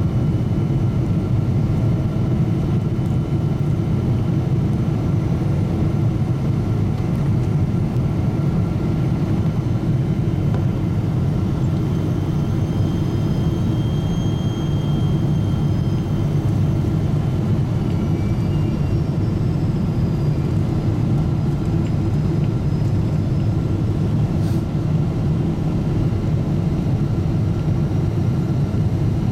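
Steady cabin noise inside a Boeing 777-200ER on its approach: engine and airflow rumble heard from a window seat beside the engine. Faint thin whistling tones come and go in the middle.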